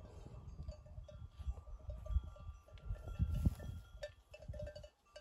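Bells on a grazing flock of sheep clinking irregularly, with some longer ringing notes, over a loud uneven low rumble.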